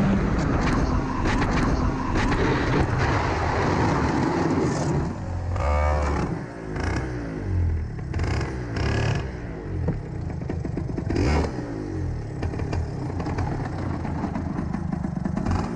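Go-kart engine at full speed, heard onboard, then revving up and down with a heavy thud about six seconds in as the kart goes off into the barrier. The engine keeps running unevenly afterwards.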